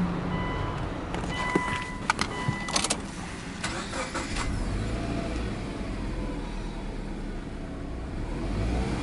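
Subaru Legacy 2.0R (BP5) with an EJ20 flat-four being started. A few electronic chime beeps and clicks come first. About three and a half seconds in there is a brief crank, then the engine catches and settles into a steady idle.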